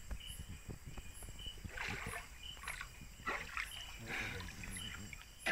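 Water swishing and splashing in a shallow river in several separate bursts, over night insects chirping steadily about twice a second.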